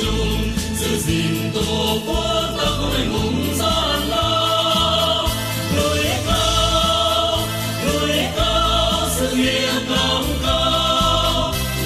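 A mixed group of male and female voices singing a Vietnamese march together into microphones, over an amplified backing track with a steady bass line and percussion.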